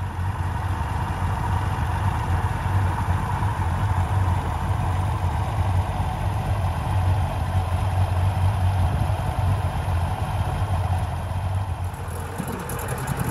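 A 40 hp Mercury three-cylinder two-stroke outboard with its cowling off, running steadily on its test run after a new fuel pump was fitted. It fades near the end.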